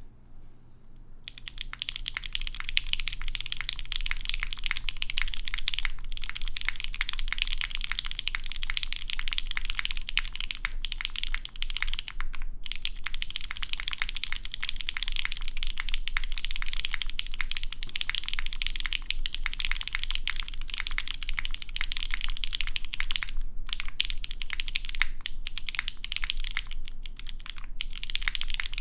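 Fast, continuous typing on a custom mechanical keyboard: lubed C3 Tangerine v2 linear switches with 65 g springs in an aluminum half plate, under GMK keycaps. The typing starts about a second in and pauses only briefly twice.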